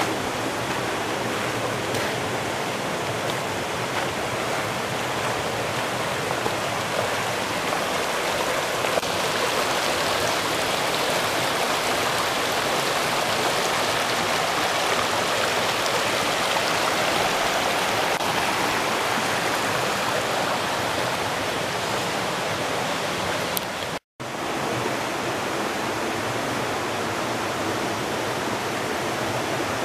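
Cockermouth River water rushing steadily over rocks and boulders, an even hiss of flowing water, broken by a split-second dropout about three-quarters of the way through.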